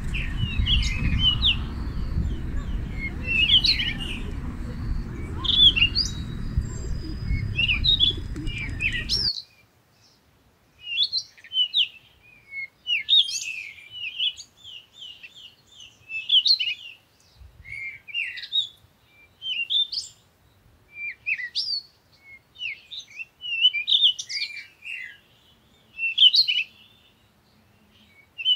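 Small songbirds chirping and twittering in quick, short, high calls. For the first nine seconds a low rumbling noise runs underneath, then cuts off suddenly.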